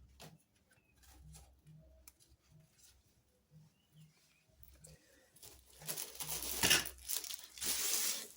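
Plastic packaging crinkling and rustling as groceries are handled and set down on a shelf, loudest over the last three seconds, after a few faint clicks and knocks.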